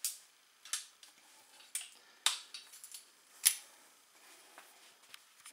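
Sharp clicks and knocks of a crossbow being handled and readied for a shot, five of them in about three and a half seconds, the last two the loudest.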